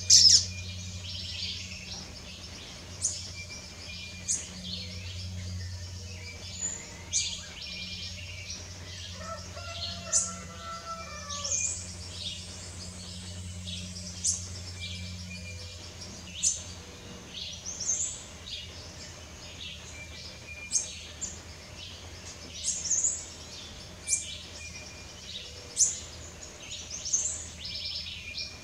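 A small bird's high, thin chirps: short downward-sliding notes, one every second or two, over a steady low hum.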